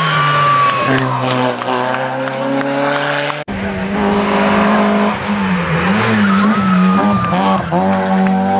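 Rally car engines at full race pitch as the cars take a bend, the engine note rising and dropping with throttle and gear changes. There is an abrupt cut to another car about three and a half seconds in.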